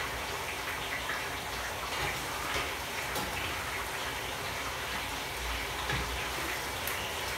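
Steady sizzling hiss of food frying in a pan on a gas stove, with a few faint light clicks.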